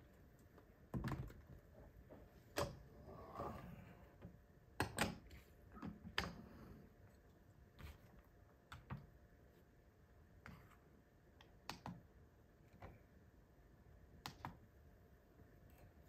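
Irregular light clicks and knocks of hard parts being handled and set down on the base of a Cafelat Robot lever espresso maker as the portafilter, an espresso cup and a small digital scale are put in place, busiest in the first half.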